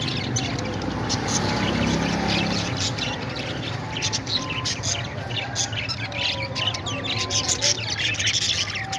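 Parrots chirping and squawking in a rapid run of short, sharp, high calls.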